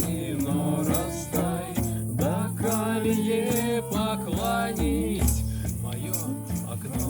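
A song playing: a voice singing a melody over held bass notes and a steady beat.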